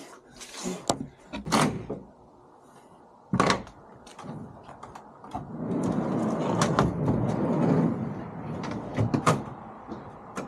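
Wooden truck-bed slide-out platform being pulled out along its runners, a steady sliding scrape lasting about three seconds after the midpoint, with sharp clicks and knocks of handling before and after it, including a single loud knock about three and a half seconds in.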